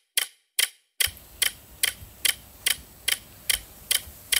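Clock ticking sound effect: sharp, even ticks a little over twice a second, marking time passing while waiting. Faint low room hum comes in under the ticks about a second in.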